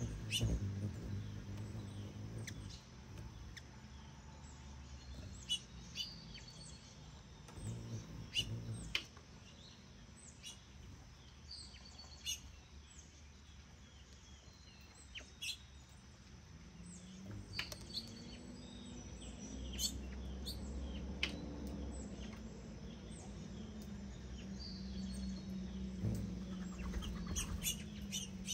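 Small birds chirping: short, high chips and tweets scattered through, over a low steady hum that grows louder in the second half.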